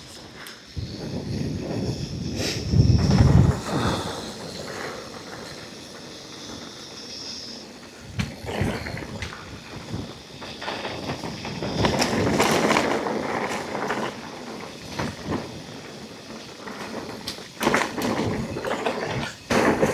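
Mountain bike riding down a dirt trail: tyres rolling over dirt, with irregular knocks and rattles as the bike hits bumps, louder in surges.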